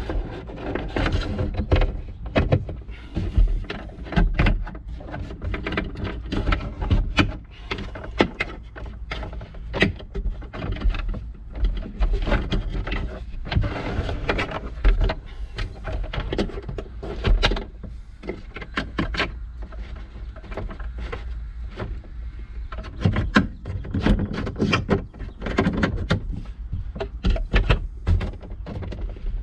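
Irregular clicks, knocks and rustling as a cargo net is handled and its hooks are fitted over the back wall of a pickup cab.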